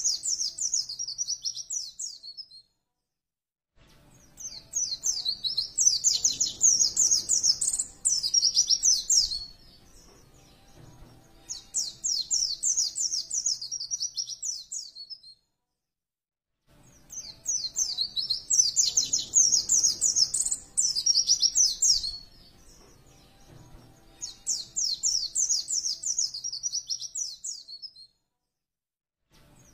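White-eye (pleci) singing in fast, high twittering phrases of rapid notes, each a few seconds long, with short breaks between them. The same sequence of phrases repeats after about thirteen seconds, as in a looped recording.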